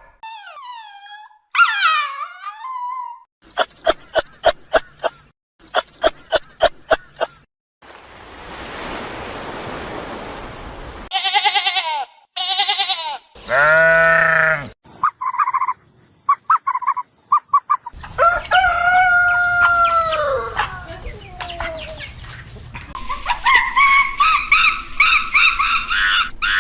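A run of separate farm-animal calls, one after another with short gaps, among them a rooster crowing and hens clucking.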